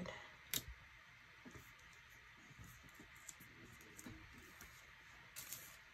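Faint handling of paper and stickers on a planner page: light taps and rustles, with a sharp click about half a second in and a brief rustle near the end.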